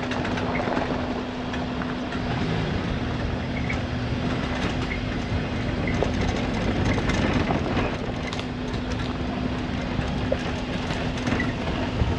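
Suzuki Jimny driving over a rough off-road track, heard from inside the cabin: a steady engine hum with constant rattling and small knocks from the vehicle.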